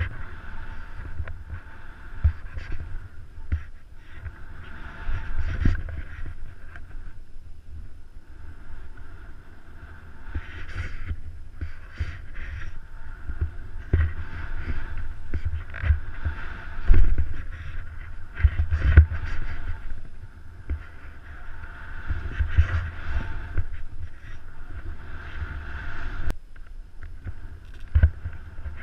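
Skis hissing through deep powder snow in repeated turns, with wind rumbling and buffeting against a body-worn camera's microphone, giving irregular low thumps, the strongest about two-thirds of the way through.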